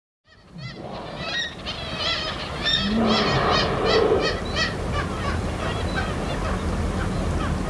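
A flock of birds calling, many short calls a second, fading in over the first few seconds above a steady low rumble.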